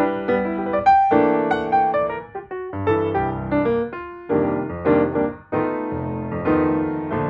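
Background piano music, a run of notes played at a moderate pace.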